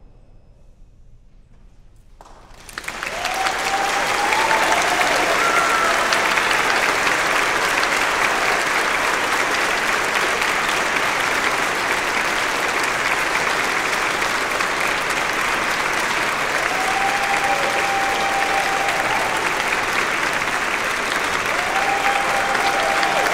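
Audience applause breaking out after about two seconds of quiet, then dense, steady clapping.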